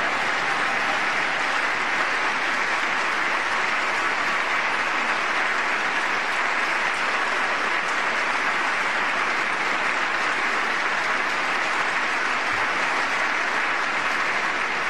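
Long, steady applause from a large audience.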